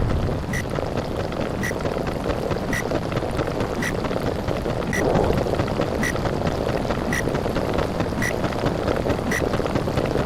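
Underwater ambience sound effect: a steady rushing, rumbling water noise, with a short high tick about once a second.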